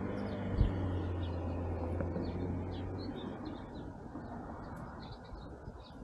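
Small songbirds chirping, many short high chirps scattered throughout, over a steady low hum and background rumble; the hum fades out about three seconds in. A single low thump about half a second in.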